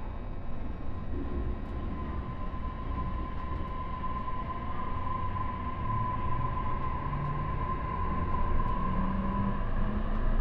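E531 series electric train's inverter and traction motors whining over steady running noise. A high tone holds steady while a lower tone climbs in pitch from about halfway through as the train gathers speed.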